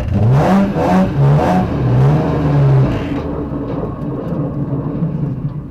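BMW rally car's engine heard from inside the cabin, revving up and down in a few quick blips, then settling to a steadier, quieter run about three seconds in.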